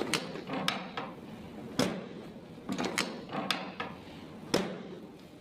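A run of sharp cracks and clicks from spinal joints being adjusted by a chiropractor: joint cavitations as the back is manipulated. The loudest cracks come about two seconds in and a little before the end.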